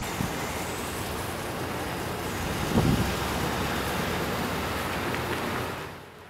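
Ford police car pulling away and driving off: a steady rush of engine and tyre noise that swells briefly about three seconds in, then fades out near the end.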